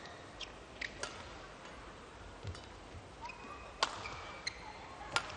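Badminton rally: sharp racquet hits on the shuttlecock, the loudest about four seconds in, with brief high squeaks of shoes on the court.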